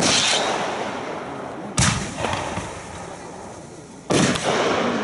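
Aerial fireworks bursting overhead: three loud bangs, at the start, just under two seconds in and about four seconds in, each trailing off over a second or so.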